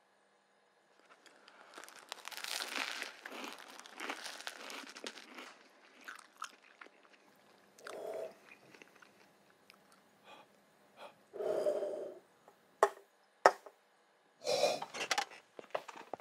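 A person biting into and chewing a sandwich close to the microphone, with wet crunching bites for several seconds. Shorter chewing and mouth sounds follow, and a few sharp knocks come near the end.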